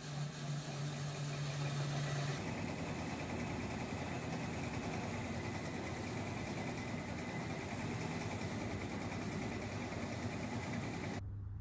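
A machine running steadily with a low hum and a higher whine. The sound shifts a little about two seconds in and cuts off suddenly near the end.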